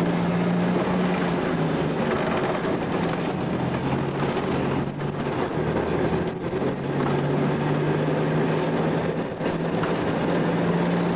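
Railway speeder (motor track car) running along the track: a steady engine drone over the rumble and rattle of its wheels on the rails, the engine note wavering slightly in pitch.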